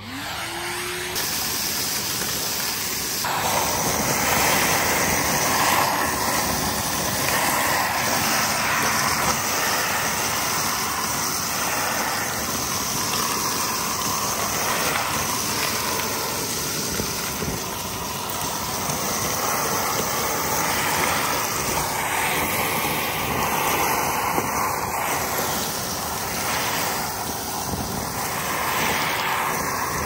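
Numatic Henry cylinder vacuum cleaner with a 1200-watt twin-flow motor starting up with a short rising whine, then running steadily. Its bare hose end is sucking up bark chips and soil.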